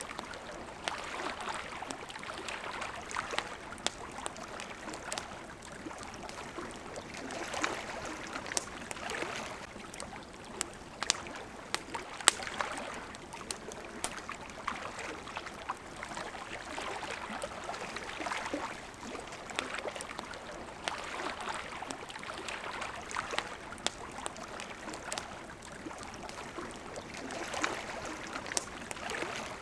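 Campfire crackling with scattered sharp pops, over small waves washing in and out in swells every two or three seconds.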